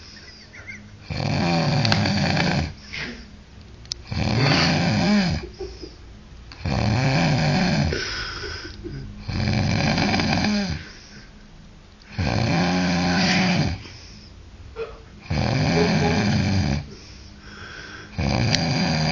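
Loud, rhythmic snoring: seven long rasping snores about three seconds apart, each with a pitch that rises and falls, and quieter breathing between them.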